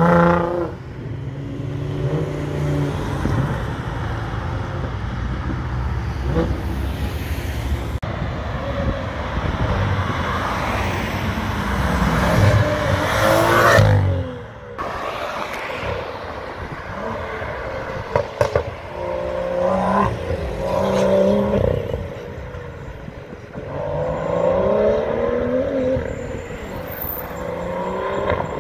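A string of sports cars accelerating hard, one after another, including a Nissan GT-R and a winged BMW M2, with their engine notes rising through the revs and falling away as they pass. The sound changes abruptly between passes.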